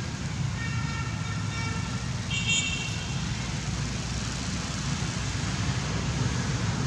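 Steady low outdoor rumble with two short steady-pitched toots, the first about half a second in and a second, higher one between two and three seconds in.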